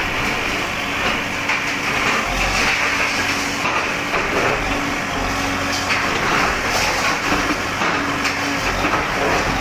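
Bulldozer demolishing a house: its engine running, with repeated crunching and knocking from breaking masonry.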